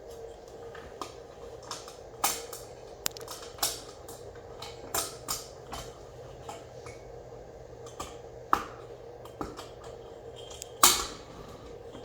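Irregular clicks, taps and clatters of hard plastic and metal fixture parts being handled and clipped as an LED ceiling light is fitted, the loudest knock near the end, over a faint steady hum.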